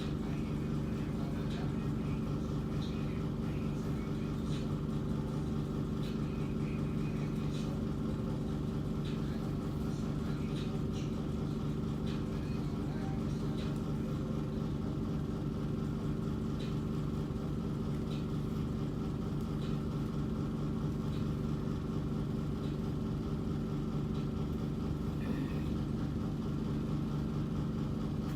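Steady low machine hum made of several constant tones, with faint scattered light ticks through it.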